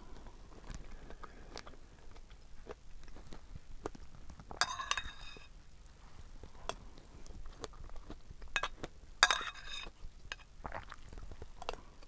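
Close-up chewing and mouth sounds of someone eating fresh strawberries with whipped cream, with many small clicks throughout. Two louder eating noises about half a second long come roughly halfway through and again about three quarters of the way in.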